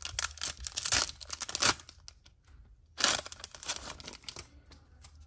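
Foil wrapper of a Bowman baseball card pack being torn open and crinkled. There are two spells of crinkling: one at the start lasting under two seconds, and another about three seconds in.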